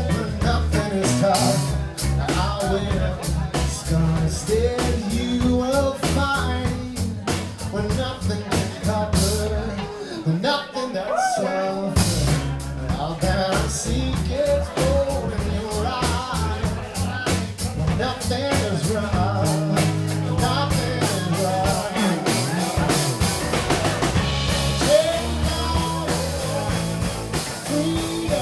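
A live rock band playing a song: drum kit, bass and guitar under a sung lead vocal. About ten seconds in, the bass and drums drop out for roughly two seconds, then the full band comes back in.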